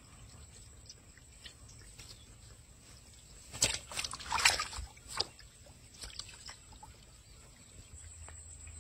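A freshly caught fish thrashing in a blue plastic container of water, a cluster of splashes and slaps lasting about two seconds midway, with a few faint handling clicks around it.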